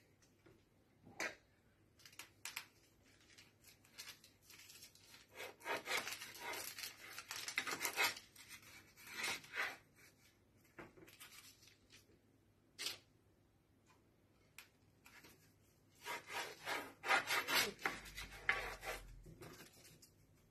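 Kitchen knife sawing through a roll of puff pastry and scraping on the parchment paper beneath, in two spells of back-and-forth strokes, one about five seconds in and one near the end, with a few single sharp taps between.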